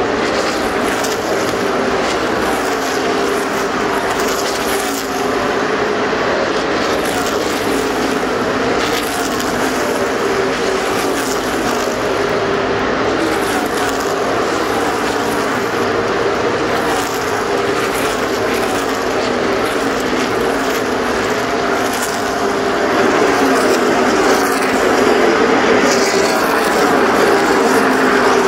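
NASCAR stock cars' V8 engines running at race speed around the track. The engine pitch rises and falls over and over as cars go past, and the sound gets louder about two-thirds of the way through.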